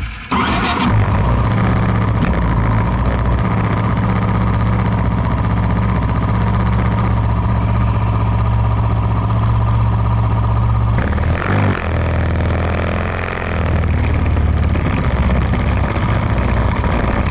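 An engine comes in suddenly with a short rasp and then runs at a steady speed. About eleven seconds in its sound dips and changes for a few seconds, then steadies again.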